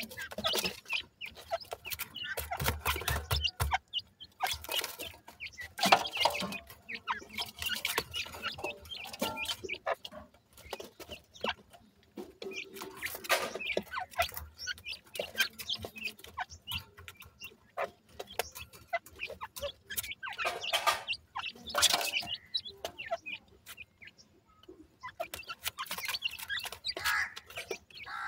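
Grey francolin chicks feeding in a metal basin: irregular pecking and scratching taps in the soil and feed, with short clucking calls now and then.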